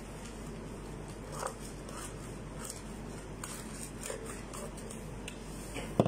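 Quiet food-preparation handling sounds: faint rustles and small clicks as flatbread wraps and cucumber slices are worked on a tray, with a sharp knock near the end.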